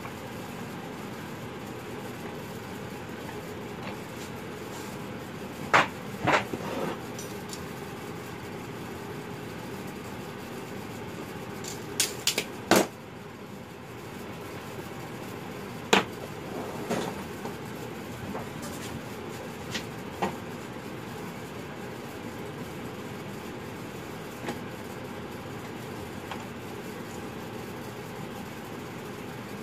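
Scattered sharp knocks and clanks of tools and a workpiece being handled and set on a workbench, over a steady low background hum. There are two knocks about six seconds in, a quick cluster of three around twelve seconds, and a single one near sixteen seconds, with a few softer ones after.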